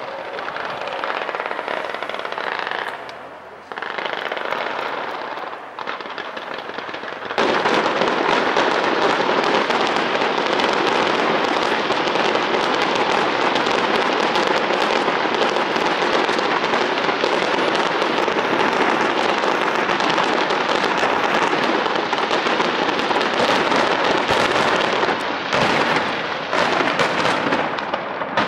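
A starmine fireworks barrage, with many shells fired in rapid succession bursting and crackling. It starts as a broken run of bangs and thickens into a dense, continuous volley about seven seconds in.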